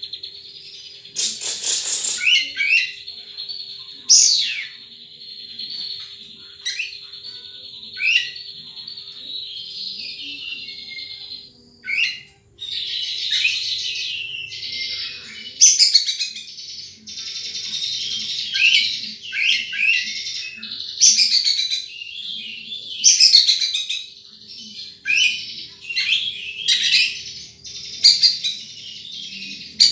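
Wild sunbird singing: a high, thin trill, near-continuous, broken by sharp high notes that drop in pitch and repeat every second or two. A faint steady low hum runs underneath.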